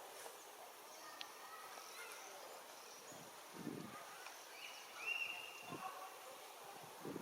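Faint outdoor ambience with a brief high-pitched animal call about five seconds in and a few soft low thumps.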